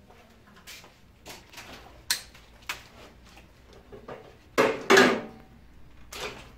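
Scattered clicks and clatter of hand work on a control panel, with two sharper clicks a little after two seconds in and a louder rustling, scraping burst just before five seconds in.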